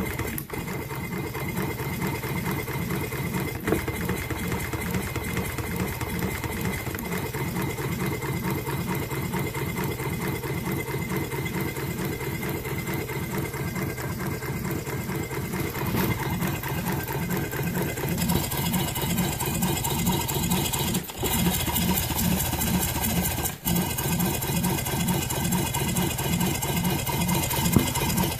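Stuart Turner Swan twin-cylinder marine steam engine running on compressed air, its exhaust beat and moving parts making an even, rhythmic mechanical clatter.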